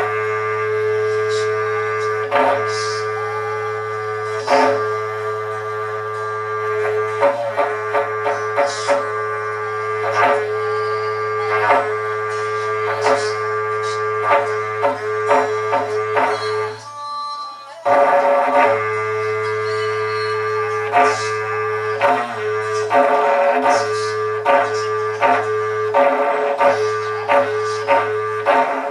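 Berrante, the long Brazilian cattle-calling horn made of joined ox horns, blown in a long droning note broken by many quick rhythmic pulses. It breaks off for about a second some 17 seconds in, then the call resumes.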